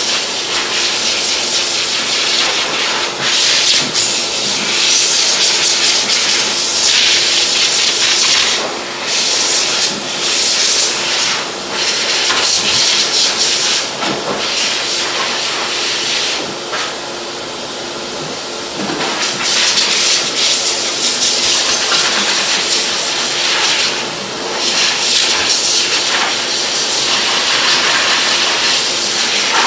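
Pet grooming dryer blowing a loud rush of air over a short-coated dog, with a steady motor tone under it. The rush swells and dips over and over as the nozzle is moved. It is running below full power.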